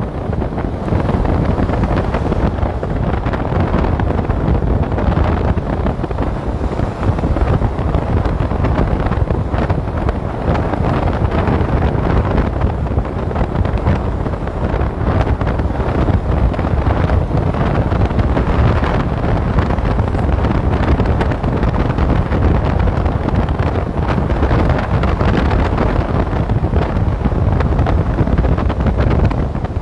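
Steady wind rushing over the microphone of a camera travelling along a road at speed, mostly low-pitched, with no break.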